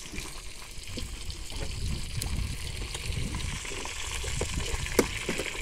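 Fish frying in hot oil in a wok, a steady sizzle, with a few short clicks of the spatula against the pan, the sharpest about five seconds in.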